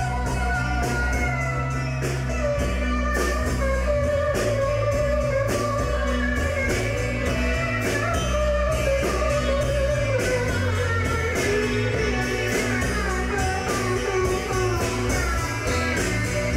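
A rock band playing live and without vocals. An electric guitar plays a sliding lead line over steady bass and regular drum and cymbal hits.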